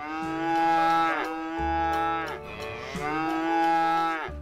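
Cows mooing: two long moos, each dropping in pitch as it ends.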